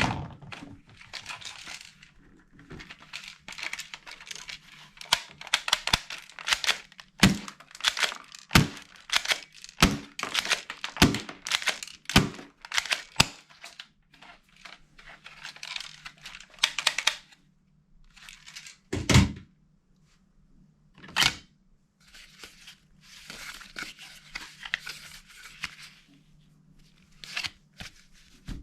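Unboxing by hand: tape or cardboard tearing in repeated rasps and plastic packaging crinkling, with many sharp knocks and clicks as the contents are handled, over a faint steady low hum.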